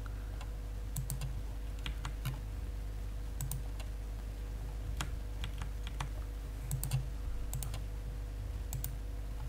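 Irregular sharp clicks from a computer's mouse and keyboard, about twenty of them, some in close pairs, over a steady low hum.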